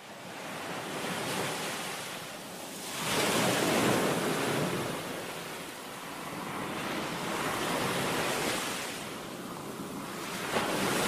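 Ocean surf breaking on a sandy beach, the wash swelling and fading in slow waves every few seconds, the loudest about three to four seconds in.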